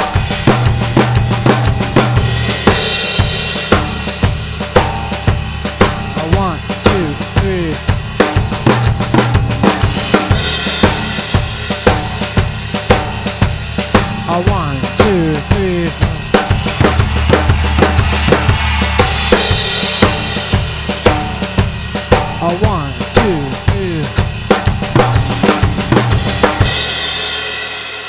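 Acoustic drum kit playing a steady groove on bass drum, snare and cymbals, breaking into a fill of Swiss Army triplets (flammed triplets) moved around the toms about every seven seconds. It rings out near the end.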